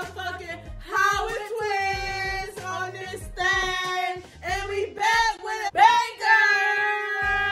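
Music with a high singing voice holding long notes over a low bass line.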